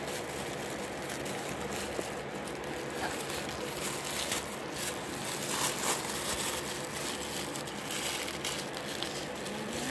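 Plastic wrapping crinkling and rustling in small, irregular crackles as it is handled and pulled open.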